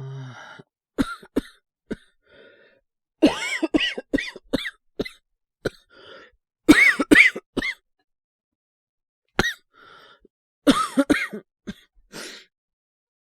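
A man's voice coughing hard in repeated fits of several coughs each, with short breaths between: an acted sick cough of a feverish cold.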